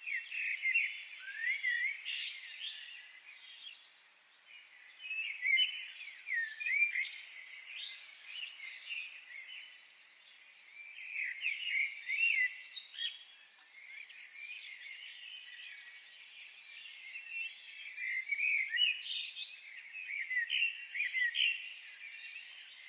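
Small songbirds chirping and twittering in busy bouts of quick, high chirps, with quieter lulls in between.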